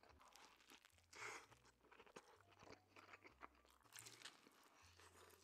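Faint, close-miked chewing and crunching of food, with a bite into a crisp grilled quesadilla about four seconds in.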